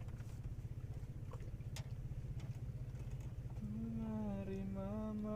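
A motor running with a steady low rumble, a few sharp clicks over it. From about three and a half seconds in, a voice starts humming a tune, its notes held and sliding.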